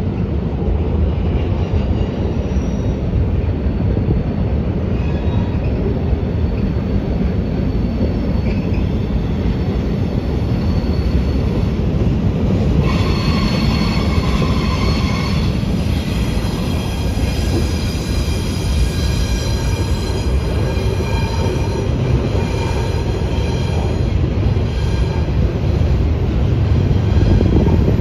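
Freight cars of a long mixed freight train rolling past with a steady low rumble of steel wheels on rail. High-pitched wheel squeal rises over the rumble about halfway through and returns more faintly near the end.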